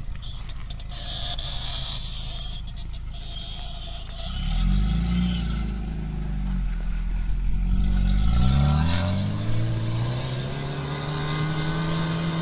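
Opel Frontera A Sport's engine running low at first, then revving up about four seconds in, easing briefly, and revving hard again from about eight seconds, held high under load as the 4x4 climbs a steep grassy bank.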